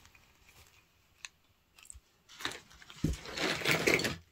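Hands rummaging in unpacking material: a light click, then from about three seconds in a second or so of loud rustling and crunching that starts with a thump.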